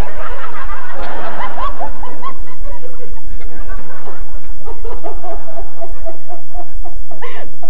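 A man and a woman laughing hard together, ending in a run of short, rhythmic "ha" bursts of about four a second. The laughter is loud throughout.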